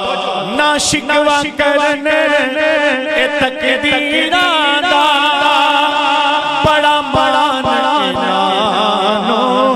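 Man singing a devotional Punjabi naat into a microphone: one ornamented melodic line with many slides and trills, over a steady held drone.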